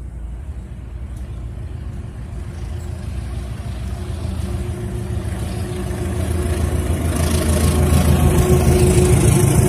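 GE CC204 diesel-electric locomotive hauling a passenger train, its engine growing steadily louder as it approaches and draws level, with wheel-on-rail noise rising near the end as it passes.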